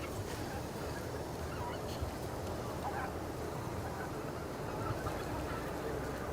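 Greater white-fronted geese calling: scattered short honks every second or so over a steady low background noise.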